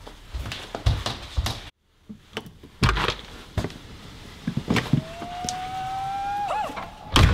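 A front door being opened and shut: handle clicks and knocks, then a drawn-out hinge creak about five seconds in, ending in a loud bang as the door closes near the end.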